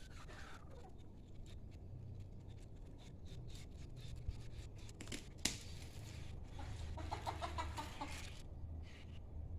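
Chickens clucking, with a pulsed run of calls about two-thirds of the way through. Scattered sharp clicks and one louder snap a little past the middle sound over them.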